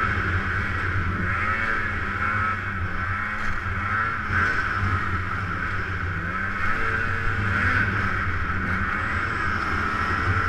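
Snowmobile engine running under throttle while climbing through deep snow, its pitch wavering up and down as the throttle changes, heard from on the machine.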